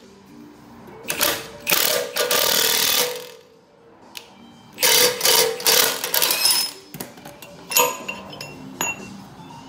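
Milwaukee cordless impact wrench hammering in several bursts, the longest about two seconds, as it drives the forcing screw of a C-frame ball joint press to press a lower ball joint in the steering knuckle.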